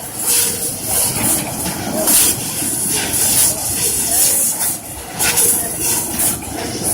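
Fiber laser cutting machine at work: a loud hiss of assist gas from the cutting head that swells and eases every second or so as it cuts and moves between cuts.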